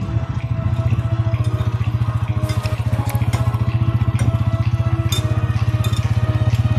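Single motorcycle engine running at a steady cruising pace, its exhaust note pulsing evenly, while the bike is ridden along a rough dirt track. Faint background music plays over it.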